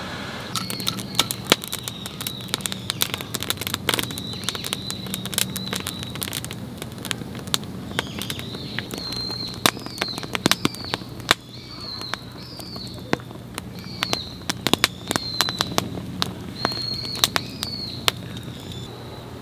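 Campfire wood crackling, with many sharp, irregular pops and snaps. Behind it runs a steady high-pitched tone that wavers in pitch now and then.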